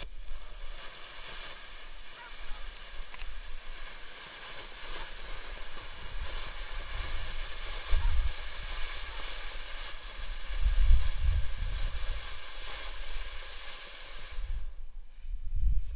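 Black Cat Energizer fountain firework burning with a steady hiss of spraying sparks. Low rumbles swell about halfway through and again a few seconds later.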